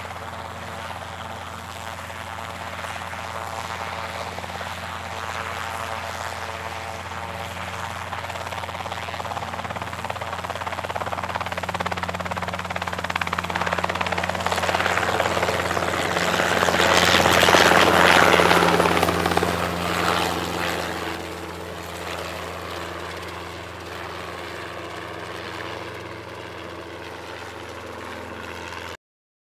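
Eurocopter EC130 helicopter running close by: a steady rotor and turbine sound that swells to its loudest about 17 to 18 seconds in, then eases off and stops abruptly just before the end.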